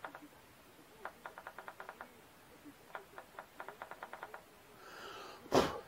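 Paper towel being tapped against the coloured face of a whitetail deer mount: two runs of quick, light taps, about ten a second. Near the end comes a brief, louder whoosh.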